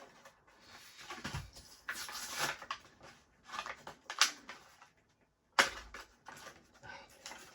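Stiff plastic blister packaging being pried and torn open by hand: irregular crackles and snaps of the plastic, with a sharp crack a little past halfway.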